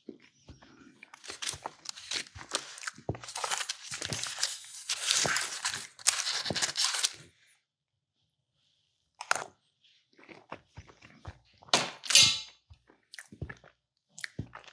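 Close-miked eating of tiramisu: chewing and mouth sounds with utensil noises for most of the first seven seconds, then a pause and a few scattered sharp clicks and knocks, the loudest about twelve seconds in.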